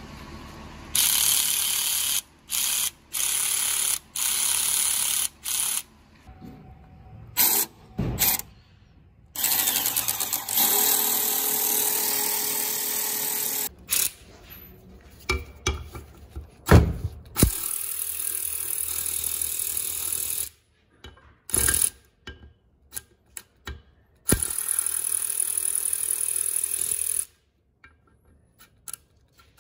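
Snap-on cordless ratchet motor whirring in a string of short bursts, then several runs of two to three seconds, each starting and stopping abruptly, with small knocks between them.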